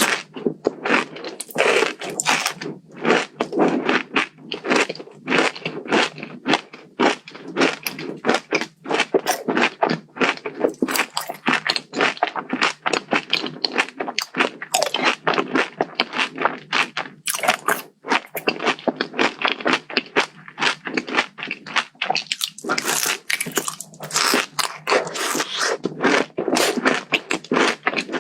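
Close-miked crunching and chewing of a Dubai-style chocolate bar filled with crisp kataifi pastry: a fast, continuous run of crisp crunches, with a brief lull near the end.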